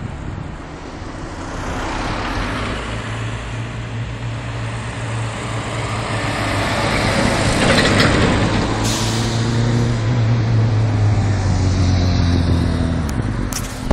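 Scania truck pulling a tanker trailer drives past: a steady low diesel engine drone with tyre noise, building to loudest about eight seconds in as it passes, then fading away. A car follows close behind.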